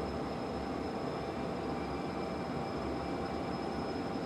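EH500 electric freight locomotive standing still with its onboard equipment running: a steady hum and rush, with a thin high whine through most of it.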